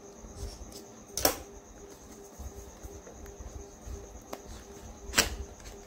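A cardboard product box being slit open with a utility knife and handled, giving two short sharp scraping sounds, about a second in and near the end. A steady high cricket chirr runs underneath.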